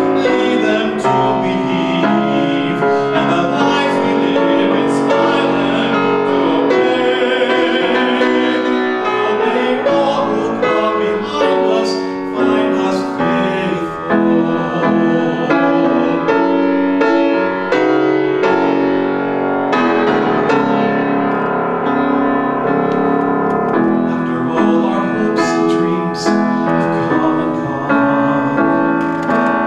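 A man singing and accompanying himself on a grand piano.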